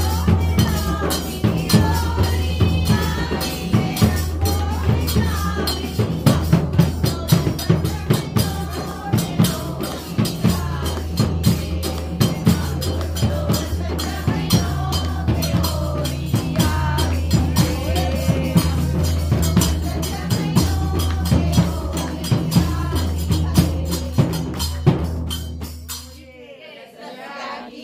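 Women singing a devotional song together, accompanied by a jingling tambourine and quick hand-percussion strikes over a steady low drone. The music stops about two seconds before the end.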